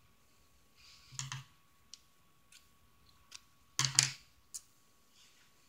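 Faint clicks and rustles of fingers working a needle and thread while tying off a stitch in felt, with two louder rustling clicks about a second in and just under four seconds in and a few light ticks between them.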